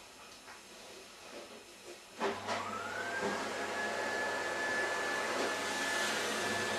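Vacuum cleaner switched on about two seconds in: the motor spins up with a rising whine that levels off into a steady high tone over a rush of air.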